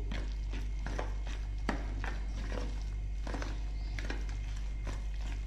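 A steel spoon stirring thick corn-and-gram-flour pakora batter in a steel bowl: irregular clicks and scrapes of metal on metal, roughly two a second, over a steady low hum.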